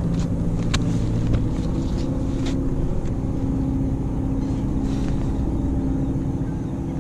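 A motor engine running with a steady drone. Its lower tones drop away about a second and a half in while a higher hum continues. A few light clicks and taps sound as a flounder is handled on a plastic measuring board.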